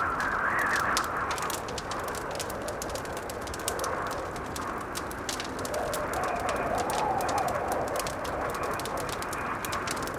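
Wood fire crackling with constant fine pops, over a blizzard wind that howls in two gusts, one at the start and a lower one past the middle.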